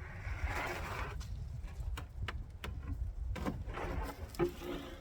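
AMC Marlin's windshield glass crunching and crackling as it is forced out of its frame, with scattered sharp clicks and knocks. The crackling is strongest in the first second and a half.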